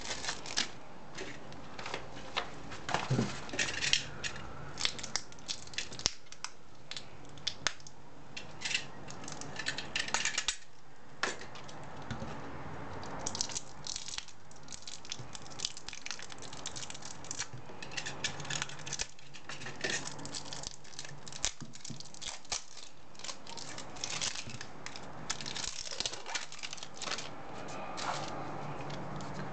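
Small zip-lock plastic bags of diamond-painting rhinestones being handled: the plastic crinkles and the loose rhinestones rattle inside, with many irregular sharp clicks and taps.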